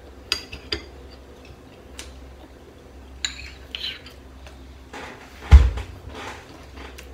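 A metal spoon clinking and scraping against a small ceramic bowl while eating, several short separate clinks, with one louder thump a little over halfway through.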